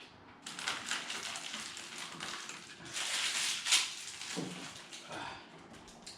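Close-up eating sounds: crunchy chewing and crackling of food at the mouth, loudest a little past the middle.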